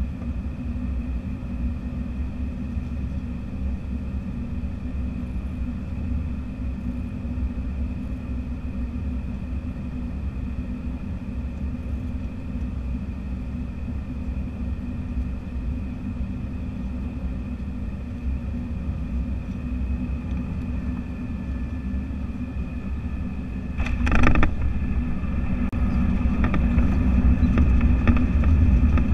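Airbus A319 cabin noise on final approach: a steady drone of the twin jet engines and airflow with a deep rumble. About 24 seconds in comes a sudden thump as the main gear touches down, followed by a louder, building rumble of the wheels rolling out on the runway with the ground spoilers raised.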